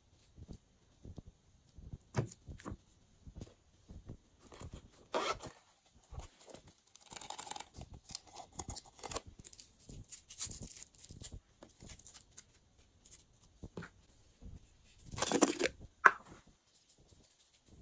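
Close handling of slime and small plastic tubs of add-ins over glass trays: scattered light clicks and crackles, with a few short rustling bursts, the loudest about fifteen seconds in.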